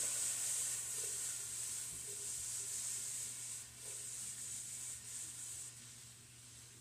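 Steak strips sizzling in a frying pan. The sizzle fades away as the pan is held up off the burner.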